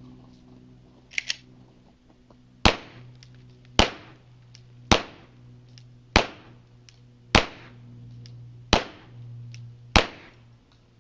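Mossberg 500 12-gauge pump-action shotgun firing birdshot loads: seven loud shots, roughly one every second and a quarter, each followed by a short ring-out. Two light clicks come about a second before the first shot.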